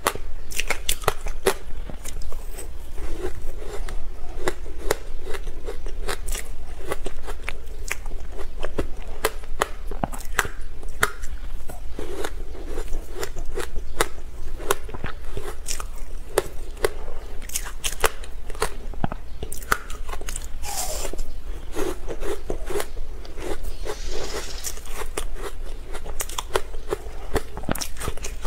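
A person biting and chewing frozen matcha ice, a continuous run of crisp crunches and crackles as the ice breaks between the teeth.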